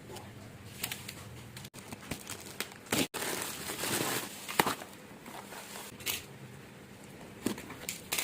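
Handling noises: scattered clicks and knocks with a stretch of crinkling rustle about three to four and a half seconds in. No impact wrench running or hammering.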